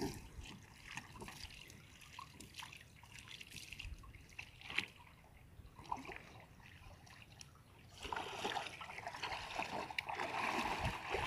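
Shallow water splashing and sloshing around wading legs and a wooden boat being pushed along. Scattered small splashes at first, turning into louder, continuous sloshing about eight seconds in.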